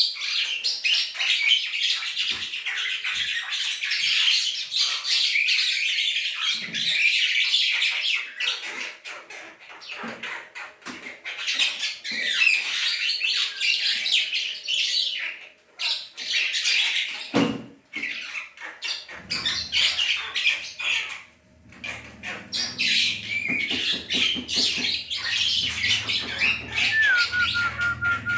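Black starling (jalak hitam) chattering and squawking in long, rapid runs of harsh calls with brief pauses, ending with a short clear whistle near the end: a lure call meant to draw a response from other starlings.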